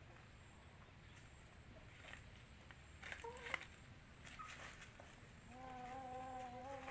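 Quiet farmyard with a few faint clicks and a short chirp, then, about five and a half seconds in, a farm animal gives one long steady call lasting nearly two seconds.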